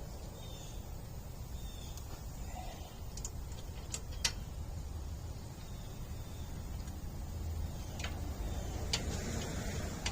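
A few scattered sharp metallic clicks and taps of hand tools working on the rear brake assembly, over a low steady rumble.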